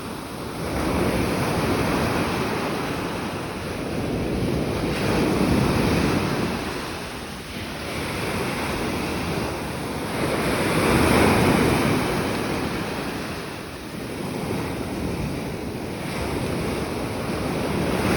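Sea surf: waves washing in and breaking, the noise swelling and falling away every three to five seconds.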